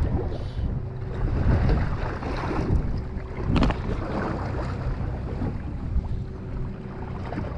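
Charter boat's engine running steadily, with wind buffeting the microphone. A single sharp knock comes about three and a half seconds in.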